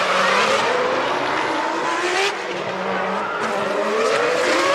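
Formula One cars' 3.0-litre V10 engines accelerating at high revs, the engine note climbing in pitch, dropping back at a gear change about two seconds in, then climbing again.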